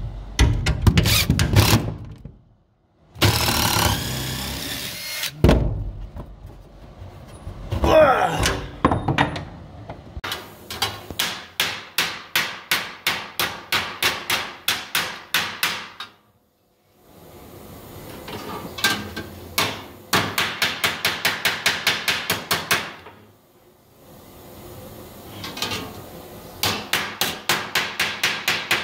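A cordless DeWalt 20V MAX impact driver with a socket rattles on truck-bed bolts at first. Then a hand hammer strikes a curved steel fender patch panel on a workbench, shaping the metal in quick, even runs of about three to five blows a second, with short pauses between runs.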